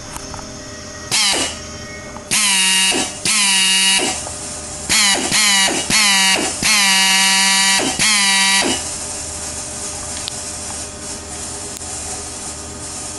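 Pneumatic air drill's air motor triggered in about seven short bursts, each a whine that rises in pitch as it spins up and cuts off when released, the last lasting about two seconds; after about nine seconds it runs on quieter and steadier with a hiss of air. The drill is down on power, which the owner puts down to a cracked rotor vane and air leaks.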